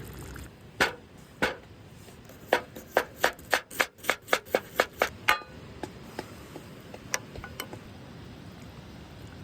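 Knife chopping on a cutting board. Two single cuts come first, then a quick run of about a dozen chops at roughly four a second, then a few scattered cuts near the end.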